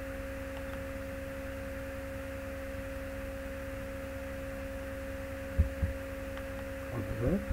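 Steady electrical hum from the recording chain: two held tones over a faint hiss. Two brief low thumps come about five and a half seconds in, and a short voice sound just before the end.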